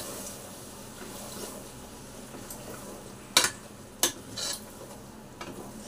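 Goat lung pieces frying in masala in an open pressure cooker, with a steady sizzle as a ladle stirs them. The ladle knocks sharply against the pot twice, about three and a half and four seconds in.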